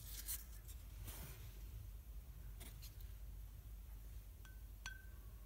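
Faint handling of small objects against a plasma lamp's glass tube: light clicks and scrapes, then two brief ringing clinks near the end, over a steady low hum.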